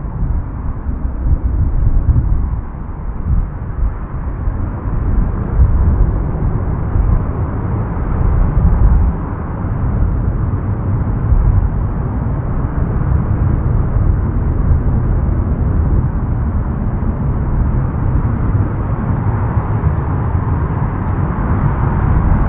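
Airbus A330-300 freighter's Rolls-Royce Trent 700 jet engines at climb thrust just after takeoff, heard as a deep, steady rumbling roar from the climbing airliner.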